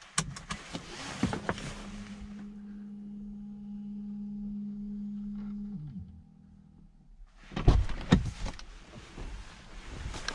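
Clicks and rustling, then a small electric motor in the car hums steadily for about five seconds and stops with a slight drop in pitch. Near the end the driver's door latch clunks twice as the door is pushed open, followed by rustling.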